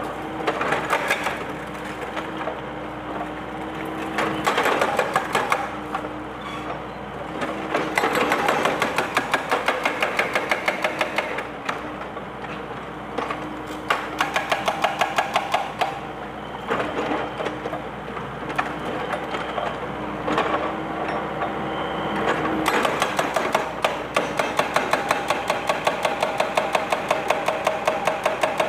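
Excavator-mounted hydraulic breaker hammering concrete in repeated runs of rapid blows, several a second, stopping and starting every few seconds. The excavator's diesel engine runs steadily underneath.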